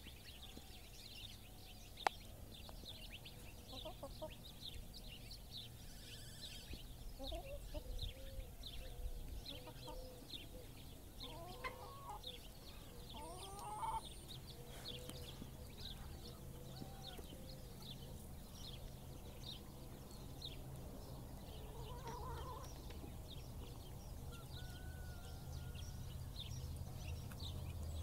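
Outdoor ambience of animal calls: rapid high chirping throughout, with a few lower calls that glide upward in pitch, over a low steady rumble. A single sharp click about two seconds in.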